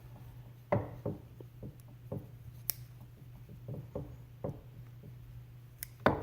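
Scattered metallic clicks and knocks of snap ring pliers working at the inner snap ring of an AC compressor pulley, irregular and about a dozen in all, over a steady low hum.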